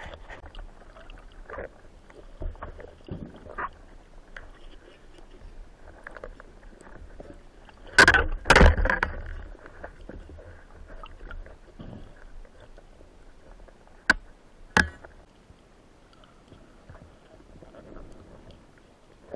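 Speargun handled underwater: a low rumble of the sea with faint ticks, two loud knocks about eight seconds in, and then two sharp clicks a little under a second apart, fitting the two rubber bands being hooked onto the shaft to reload the gun.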